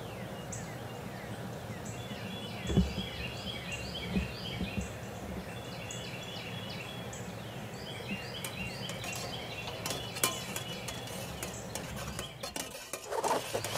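Birds singing in repeated short chirping phrases over a low steady hum. Near the end, a metal spoon clinks a few times against a steel camp mug as it is stirred.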